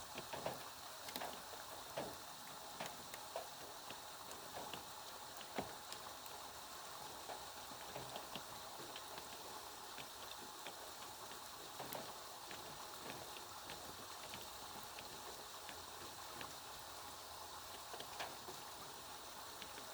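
Steady rain falling, a soft constant hiss with scattered individual drops ticking sharply on a surface.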